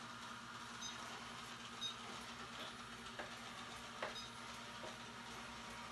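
iLife V5s Pro robot vacuum-mop running faintly in mopping mode: a low steady motor hum with a few light ticks.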